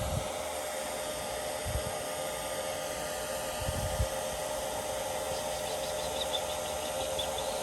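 Steady whir of a small electric motor with a constant hum-like tone, with a couple of soft low thumps about two and four seconds in.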